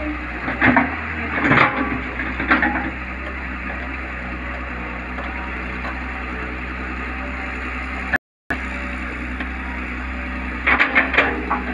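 Tata Hitachi 210 hydraulic excavator's diesel engine running steadily while digging, with crackling and crunching of soil and roots as the bucket breaks into the bank during the first few seconds and again near the end. The sound cuts out briefly after about eight seconds.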